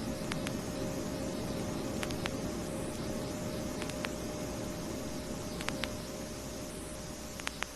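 Steady low rushing noise that slowly fades, with a faint hum and scattered sharp clicks of vinyl record crackle.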